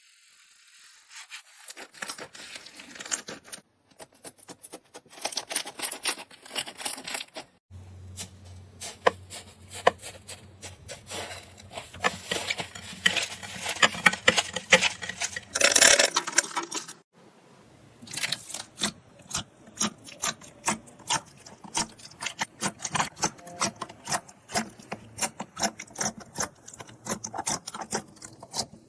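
Dry soap being cut and scraped with a knife: a dense run of crisp crunching clicks and scrapes, broken into separate takes with brief gaps about 4, 8 and 17 seconds in.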